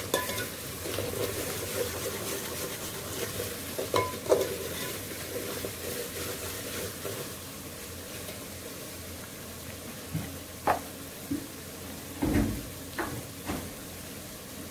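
Onion-and-spice masala sizzling in oil in an aluminium pot as it is fried, with a steel ladle stirring and knocking against the pot's side. There are a few knocks about four seconds in and a cluster of sharper knocks near the end.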